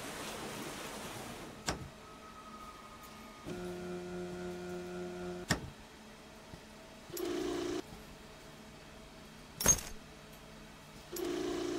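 Animation sound effects: a whoosh at the start, then a click, a steady hum lasting about two seconds, and two short buzzing bursts, with a sharp loud click between the bursts.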